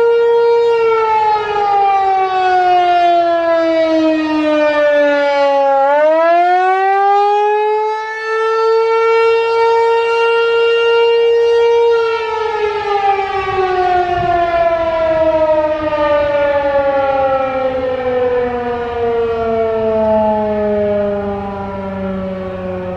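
American Signal T-128 outdoor warning siren sounding a loud, steady tone. The pitch drops over about five seconds, climbs back up and holds, then about halfway through begins a long, slow fall that is still going at the end.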